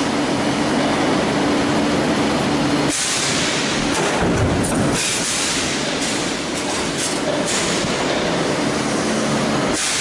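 Metal stamping press running a progressive stamping die: loud, continuous machine clatter with a steady low hum that drops away about three seconds in and comes back near the end.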